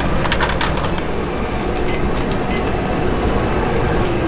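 Steady rushing noise of a commercial kitchen, with a few sharp metallic clinks in the first second as a noodle strainer basket is handled in the noodle boiler.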